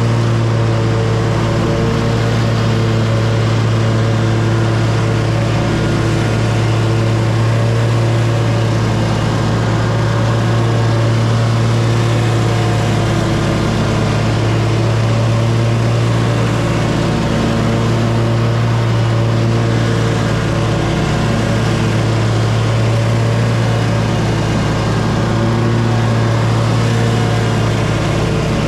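Lawn mower engine running at a steady speed, a constant hum with no change in pitch.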